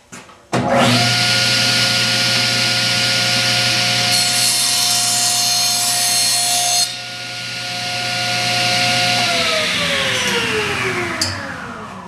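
Table saw switched on about half a second in, running with a steady whine. Its blade cuts through a wooden board for about three seconds in the middle, and the saw quietens when the cut is through. Near the end the saw is switched off and winds down with a falling whine.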